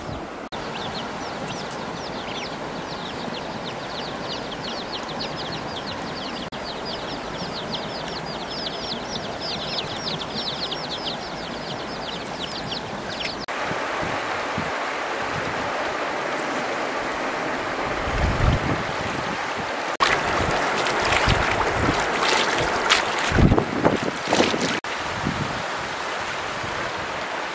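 Birds chirping: many rapid, high, falling chirps, speeding up, for about the first half. They stop abruptly, giving way to a shallow river running over stones, with a cluster of splashes and knocks from hands working in the water.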